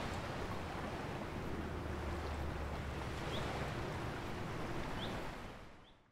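Lakeside ambience: a steady wash of wind and water with a low rumble underneath and a few short, high chirps, fading out near the end.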